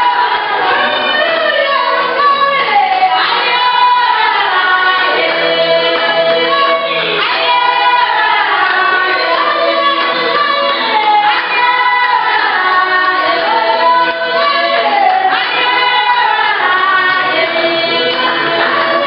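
Batwa women singing together in chorus, many voices at once.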